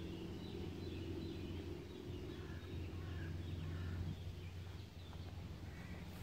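Small songbirds singing and chirping faintly, with many short calls scattered throughout, over a low steady rumble.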